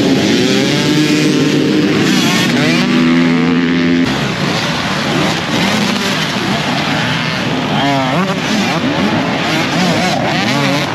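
A pack of dirt bikes revving together at the start line with held, rising engine notes. After an abrupt cut about four seconds in, several bikes rev up and accelerate one after another, their pitches rising and falling as they pass.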